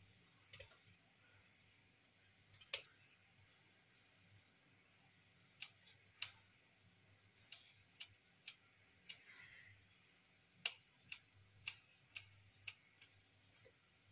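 Faint, sharp clicks and snips of kitchen scissors cutting raw prawns, a few scattered at first, then about two a second in the second half.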